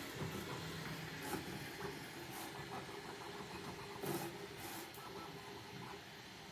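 3D printer running, its stepper motors whirring in tones that shift pitch every moment as the head moves, with a few short sharp clicks, the loudest about four seconds in.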